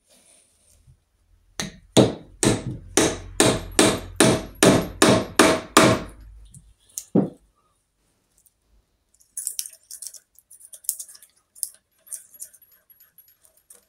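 Small hammer tapping the stator of a Norton Commando's alternator, about a dozen quick sharp taps in four seconds and then one more, to nudge it sideways where the rotor-to-stator gap is tight. Lighter clicking follows near the end.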